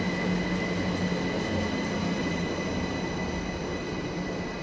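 Class 387 electric multiple unit pulling into the platform: a steady rumble with a high, steady whine over it.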